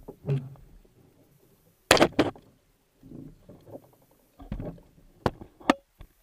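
Hollow knocks and thumps of a sprint kayak and a paddler's body bumping against a floating plastic pontoon as he climbs out of the cockpit: one knock near the start, a loud cluster about two seconds in, and several sharp knocks in the last second and a half.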